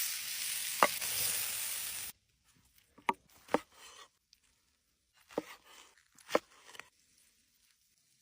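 Meat sizzling in a pan with a click in it, cut off suddenly about two seconds in. Then a handful of sharp, separate taps.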